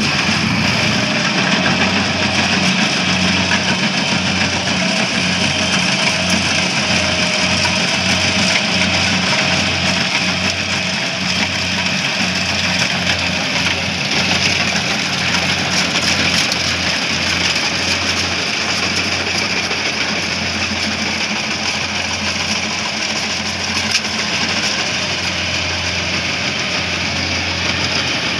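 Rice combine harvester running steadily at close range: a loud, even drone of its engine and harvesting machinery as it cuts and threshes rice.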